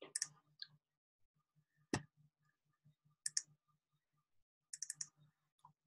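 A few faint, scattered computer clicks, some coming in quick pairs like double-clicks.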